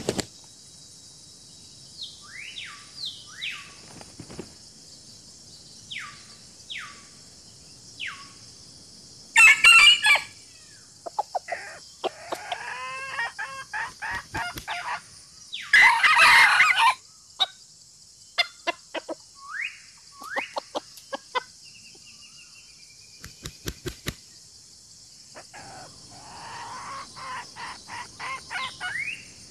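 Free-range chickens calling: a rooster crowing and hens clucking, with several loud calls about a third and halfway through, and short chirps between them. A steady high-pitched hiss runs underneath.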